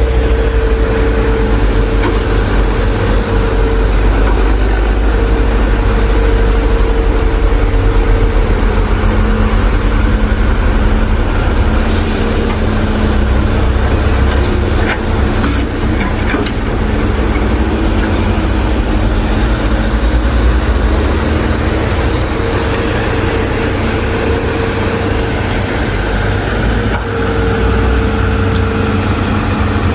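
Heavy diesel engine running steadily, with a few short sharp knocks about twelve seconds in and again around fifteen to sixteen and twenty-seven seconds in.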